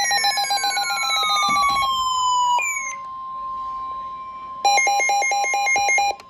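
NOAA Weather Radio warning alarm tone, a steady single-pitch tone near 1 kHz, layered with other electronic alert sounds. At the start a falling sweep plays over rapid beeping, a short falling chirp follows, and a burst of rapid beeping comes about four and a half seconds in.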